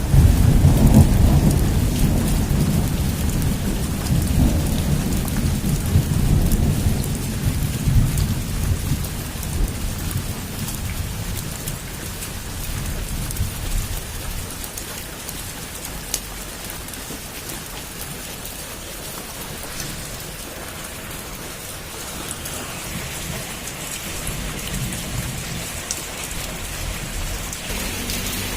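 Heavy rain drumming steadily on a roof, with a long roll of thunder at the start that rumbles on and fades away over about ten seconds, leaving only the steady rain.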